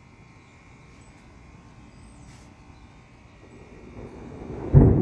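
Thunder: a low rumble builds over the last second and a half and breaks into a loud clap near the end.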